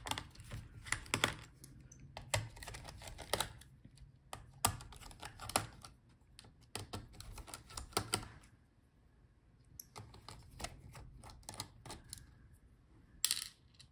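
Small screwdriver taking out a laptop's heatsink and fan screws: scattered light, irregular clicks and ticks of the bit on the metal screws. A quieter pause comes a little past the middle, and a sharper click comes near the end.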